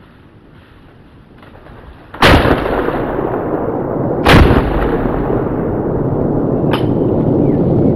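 Two loud blasts about two seconds apart, each followed by a long rumbling roar that stays loud, with a smaller sharp crack near the end.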